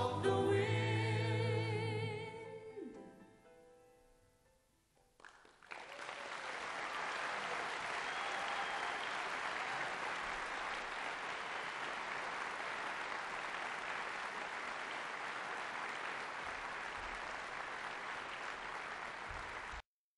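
A cappella metal voices hold a final sung chord with vibrato and fade away over the first few seconds. After a short near-silent pause, a theatre audience applauds steadily until the sound cuts off suddenly near the end.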